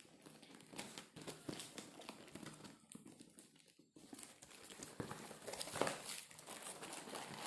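Packaging crinkling and rustling as a parcel is opened, with scattered small crackles and a brief lull about halfway through.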